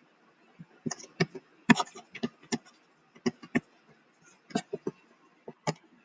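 Uneven series of short, sharp clicks and taps from handwriting strokes being made on a computer drawing screen, about fifteen in a few seconds.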